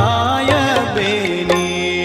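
Indian devotional music: an ornamented melody that slides between notes over a steady held drone, with a sharp percussion stroke about every second.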